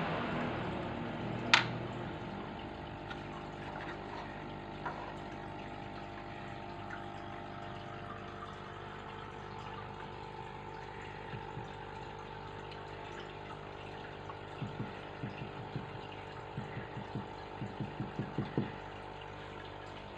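Aquarium filter running steadily: an even hum with water trickling. A sharp click comes about a second and a half in, and a run of soft quick taps near the end.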